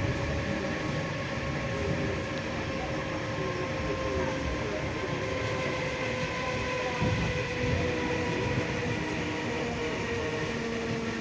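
ED4M electric commuter train running without stopping: a steady rumble of wheels on the track under a whine in several tones that sinks slightly in pitch, with two low knocks about two thirds of the way through.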